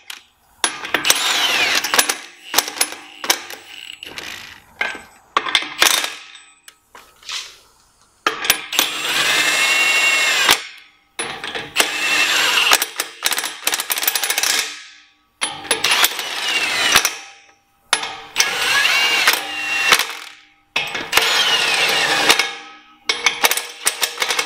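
Cordless impact wrench spinning sleeve nuts down onto the studs of an aluminium truck wheel, in about nine short bursts with short gaps. Each burst has a hammering rattle and a whine that rises and falls as the tool speeds up and slows.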